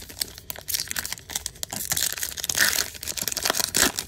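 Foil wrapper of a Topps baseball card pack crinkling as it is torn open, a dense crackle of short crinkles starting about a second in and running until just before the end.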